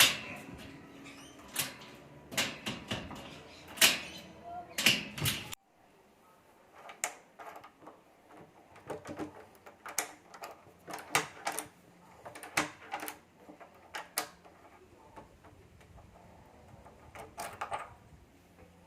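Irregular sharp clicks and knocks of hands and tools working door lock and latch hardware. They are louder and closer together for the first five seconds or so, then fainter and more scattered.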